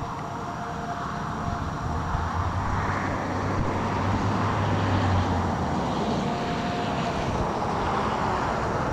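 Steady outdoor rushing of wind and traffic, with a low vehicle hum that swells about a second in and fades out a little past halfway.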